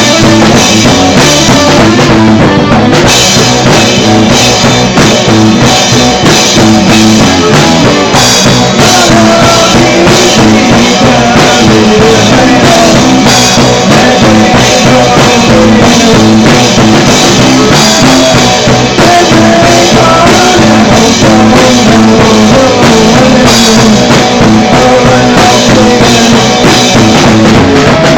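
Loud punk rock band recording: a full band with a driving drum kit, the bass drum to the fore, over a dense wall of held instrument notes.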